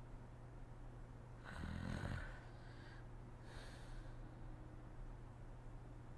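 A woman snoring in her sleep: one snore about a second and a half in, then a softer breath about two seconds later.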